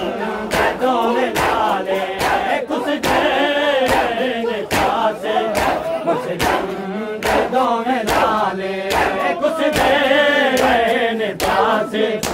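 A group of men chanting a Punjabi noha together, with a steady beat of open hands striking chests (matam) running under the singing.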